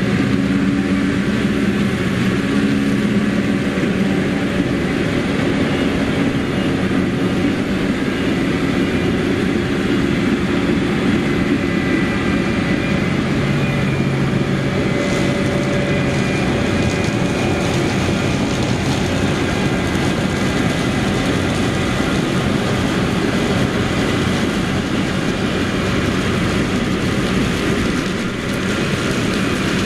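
Heavy diesel harvest machinery running steadily under load, with a deep engine drone whose pitch shifts a little part-way through over a dense mechanical rush.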